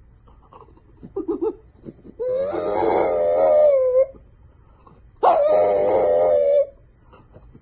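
French bulldog howling: two long, steady howls, each lasting one and a half to two seconds, with a few short soft sounds before the first.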